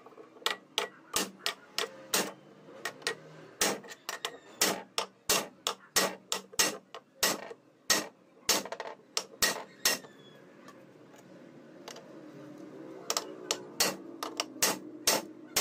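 Hammer blows on a tubular drift, driving a ball bearing down onto an impact drill's spindle held in a vise: a series of sharp metal knocks, about two a second, with a pause about ten seconds in and a few more near the end.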